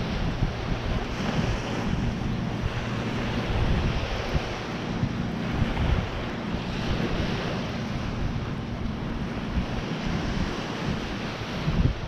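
Wind buffeting the microphone in irregular gusts over the steady wash of ocean surf.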